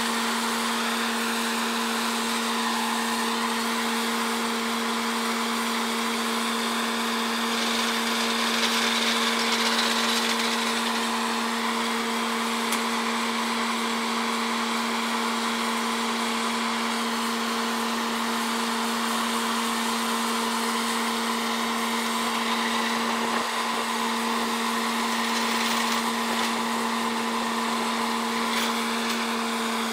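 Truck-mounted borewell drilling rig running steadily while drilling: a constant engine and compressor hum over a rushing hiss of air.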